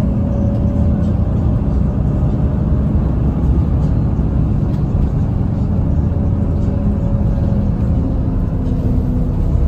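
City bus in motion heard from inside the cabin: a steady low rumble of engine and road noise, with a faint whine over it at times.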